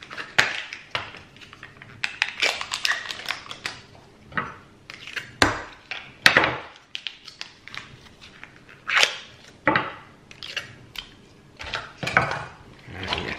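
Kitchen clatter as a small plastic stock-pot tub is scraped out with a kitchen knife into a steel saucepan: a scatter of sharp clicks, taps and short scrapes, with the two loudest knocks about five and a half and six seconds in.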